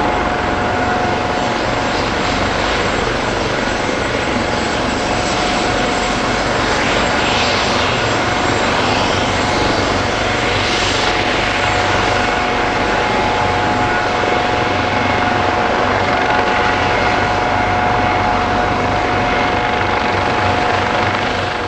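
Leonardo AW139 twin-turbine helicopter running close by, the rotor noise and a steady turbine whine holding level, with a few brief swells partway through.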